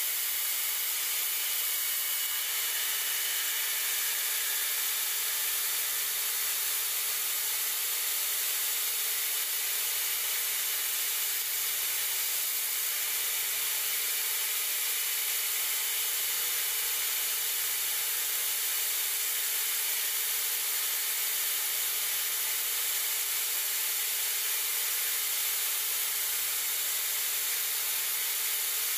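Belt grinder running steadily, grinding the ends of knife handle scales to an angle that matches the bolsters.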